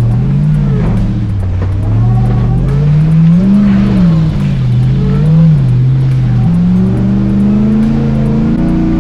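Off-road truck engine under throttle while crawling, rising and falling in pitch in several surges, then climbing steadily in pitch near the end.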